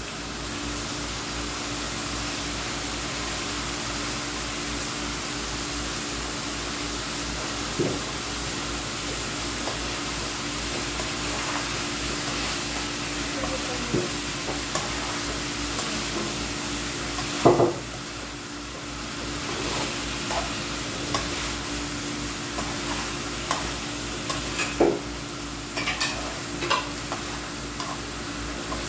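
Chicken and Baguio beans (green beans) sizzling in a wok as they are stir-fried, with a metal spoon scraping and knocking against the pan now and then. The loudest knock comes a little past halfway, and a steady hum runs underneath.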